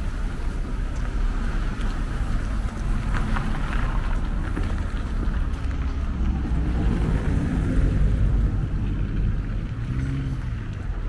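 Road traffic passing on a wet, slushy avenue: steady tyre noise and engine rumble, with one passing vehicle's engine note standing out in the second half.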